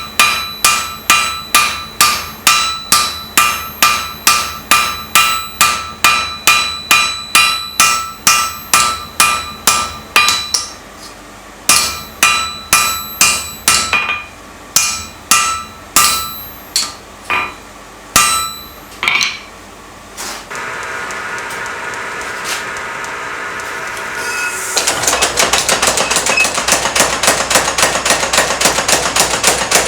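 Hammer blows on hot steel at the anvil, about two and a half a second, each with a bright metallic ring, slowing to scattered single blows after about ten seconds. From about twenty seconds a steady humming machine starts, joined about five seconds later by a louder, dense mechanical noise.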